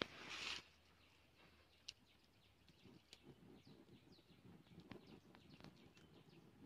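Very faint outdoor sound: scattered bird chirps and a few small pops from a wood fire, after a short hiss in the first half-second.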